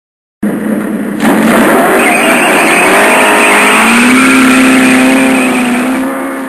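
Motorcycle engine running loud as the bike rides up, its note rising and falling. The sound starts abruptly about half a second in and fades near the end.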